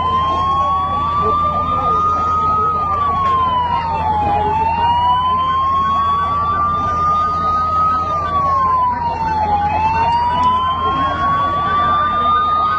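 Emergency vehicle sirens sounding. The loudest one rises slowly and then drops, about every four seconds, while other sirens sweep across it, over a steady low hum.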